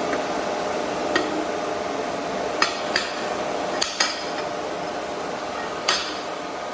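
Six sharp, irregularly spaced metallic knocks over a steady machine hum, as of steel workpieces being handled on a metal welding table.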